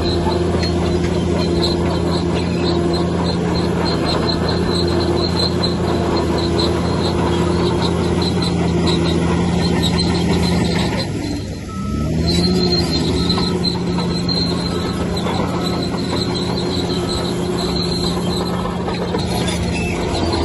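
Bulldozer's heavy diesel engine running steadily under load, with a pulsing high squeal from its steel tracks. About halfway through, the engine dips briefly and climbs back up in pitch.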